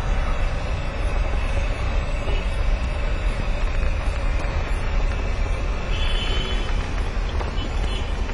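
Steady low rumble and running noise of a moving vehicle.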